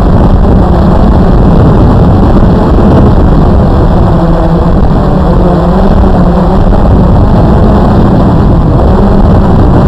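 Blade QX2 AP quadcopter's electric motors and propellers buzzing loudly from on board the drone, a steady drone with pitch that wavers slightly as the motors adjust; it cuts off suddenly at the very end.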